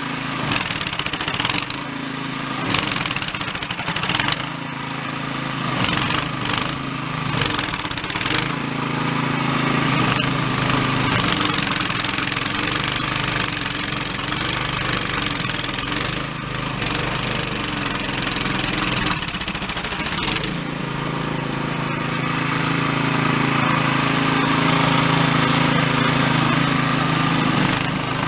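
Toro Snowmaster 724 QXE snowblower's engine running hard under load as it chews through deep, heavy refrozen snow. The engine note wavers in the first several seconds, then holds steadier, over the rush of snow being thrown from the chute.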